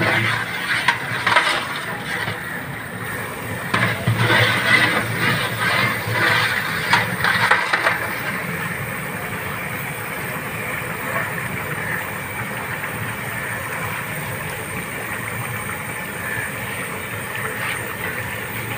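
Large aluminium pot of spiced water boiling hard, with a long steel ladle stirring and clattering against the pot's sides for the first several seconds. After that comes a steady rush of boiling.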